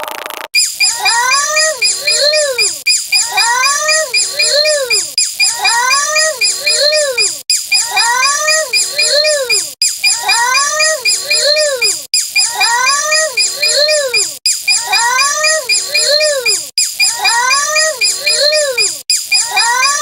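A short animal-like call sound effect looped about nine times, once every two and a quarter seconds; each repeat rises and falls in pitch twice, over a fast high ticking.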